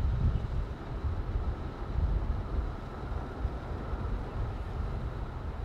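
Street traffic passing, with a low rumble of wind buffeting the microphone.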